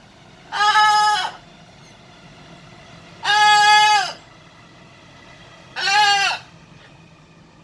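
Blue-and-gold macaw squawking three times. Each loud call is under a second long and steady in pitch, and they come a couple of seconds apart.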